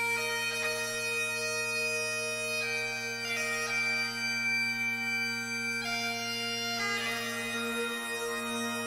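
Bagpipe music: a slow tune played over a steady drone.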